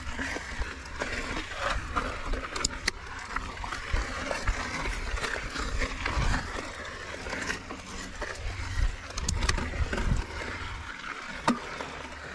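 Mountain bike climbing over loose, chunky rock: tyres rolling and crunching on stones, with the bike rattling and a few sharp knocks as it hits rocks. The rider breathes hard from the effort of the technical climb.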